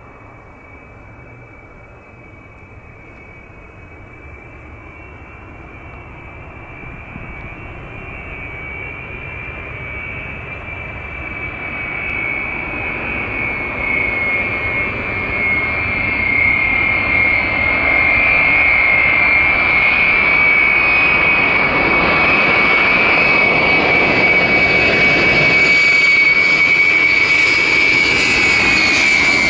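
Jet airliner approaching, its engines growing steadily louder over about eighteen seconds, then staying loud. A high steady whine rides over the rumble.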